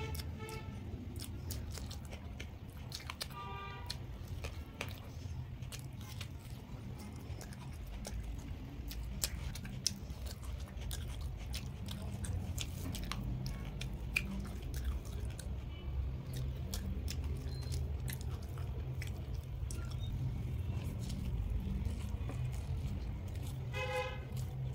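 Close-miked chewing and mouth sounds of a person eating rice and curry by hand, many small clicks and smacks over a steady low rumble. A brief pitched tone sounds about three seconds in and again near the end.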